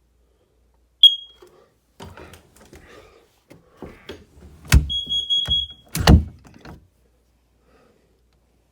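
Smoke alarm being test-sounded: a short high beep about a second in, then a longer steady high beep of about a second around the middle. Two loud knocks and some rattling handling noise come just before and after the longer beep.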